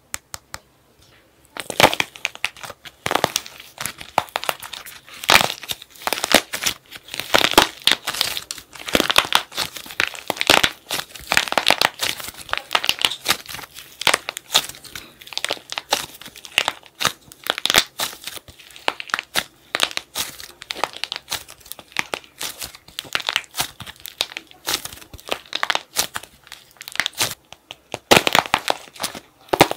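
Hardened plaster shell over soft clay cracking and crunching as it is squeezed by hand: a dense, irregular run of crisp crackles that starts about a second and a half in.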